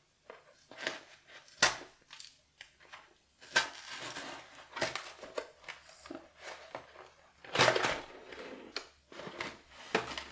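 An art-supply parcel being unpacked by hand: cardboard and paper packing crinkling, scraping and rustling in irregular bursts, loudest twice in the first few seconds and again near eight seconds in.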